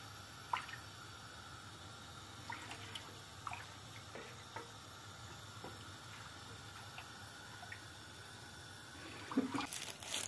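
Wooden spoon stirring sugar syrup in a large stainless steel pot: faint liquid swishing with a few light taps of the spoon. Near the end, a louder crinkling of plastic wrap.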